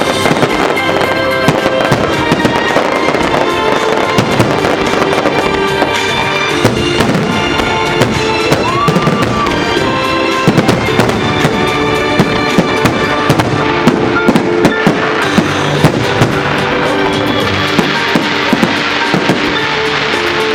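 Fireworks display: a rapid series of sharp bangs and crackles from bursting shells, with music playing underneath.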